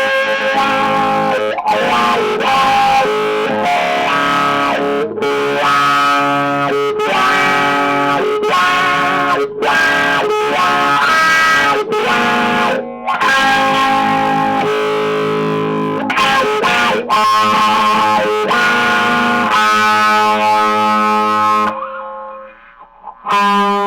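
Electric guitar played with mild overdrive, phrases of single notes and chords with short breaks. It stops for about a second near the end, then starts again.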